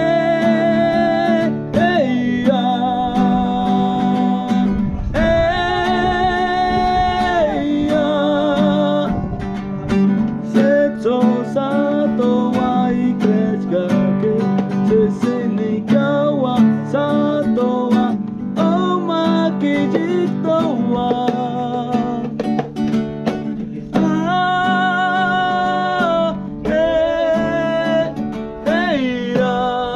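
A man singing in long held, slightly wavering notes, accompanied by a strummed nylon-string acoustic guitar.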